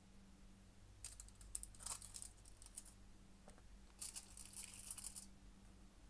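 Aluminium foil crinkling and rustling in two short bursts, about a second in and again near four seconds, as sliced banana is gathered off it by hand.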